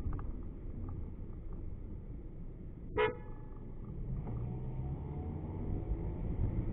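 A car horn gives one short toot about three seconds in, over the steady low rumble of a car driving through town traffic.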